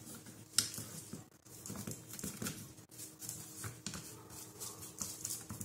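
Small handling sounds: a paintbrush and a carved wooden frieze moving over a crinkling plastic drop cloth, with a single tap about half a second in.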